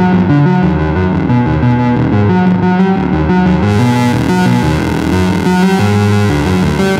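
Moog Mavis and Werkstatt-01 analog synthesizers playing a repeating sequence of low notes. About four seconds in, the sound suddenly turns brighter and hissier.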